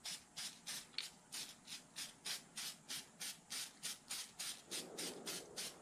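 Aerosol can of silicone-based conformal coating spraying in short, even hissing bursts, about three a second, as a gasket is coated.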